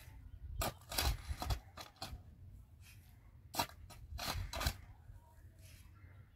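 Several short, sharp clicks and knocks of hard objects being handled, at irregular intervals: a cluster within the first second and a half and another between about three and a half and five seconds in.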